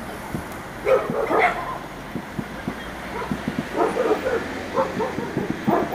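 A dog barking in short separate barks, a few times, over a steady patter of faint low pops.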